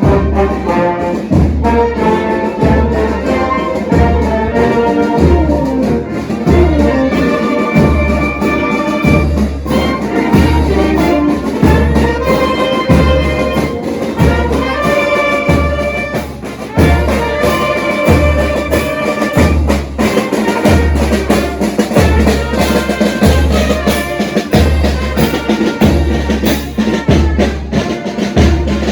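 Marching brass band playing a tune, trumpets and trombones over a steady bass drum beat.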